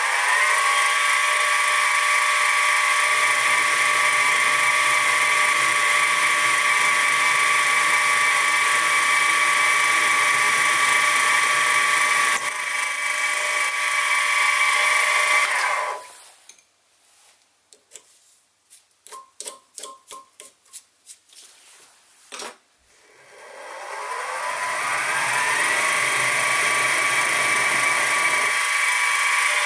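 Sieg SX2P mini mill's spindle motor running steadily with a high whine as it drives a 2.5 mm drill bit into the metal compound slide, drilling tapping holes for M3 threads. It shuts off and winds down about 16 seconds in, and a run of small sharp clicks follows. About 24 seconds in the spindle spins up again with a rising whine and settles into the same steady drilling whine.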